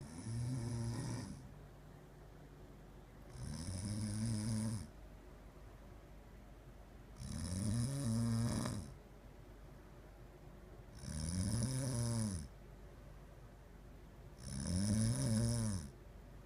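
Person snoring in sleep: five long snores, about one every three to four seconds, each rising and then falling in pitch.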